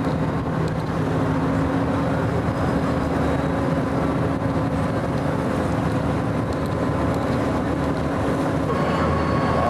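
Tender boat's engine running steadily under way, a constant low hum.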